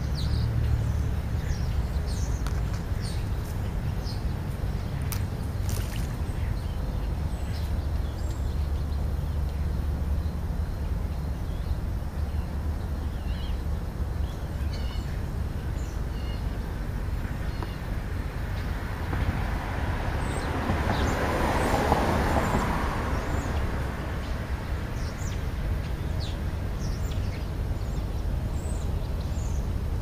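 Outdoor ambience with a steady low rumble and scattered faint short bird chirps; about twenty seconds in, a car on the street passes, swelling and fading over a few seconds.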